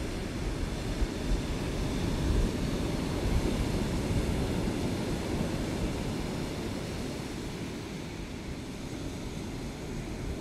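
Ocean surf: a steady wash of waves that swells a few seconds in and eases off later.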